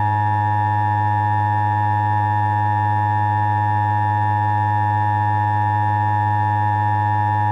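Emergency Alert System attention signal: a loud, unbroken electronic alarm tone that starts abruptly and holds steady. It is the alarm that warns of a broadcast emergency message to follow.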